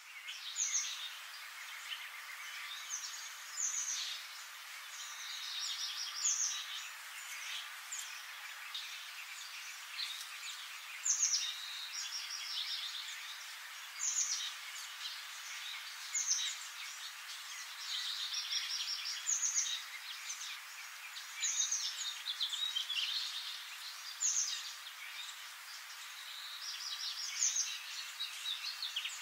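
Birds chirping and singing: short high chirps and whistled phrases recurring every two or three seconds over a steady background hiss.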